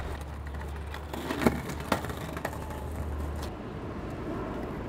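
Small skateboard's wheels rolling steadily over hard paving, with a few sharp clacks of the board between one and two seconds in.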